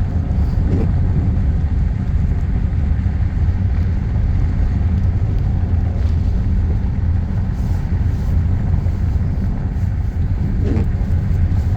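Steady road noise inside a moving car: the tyres rolling over a gravel road, with a continuous low rumble.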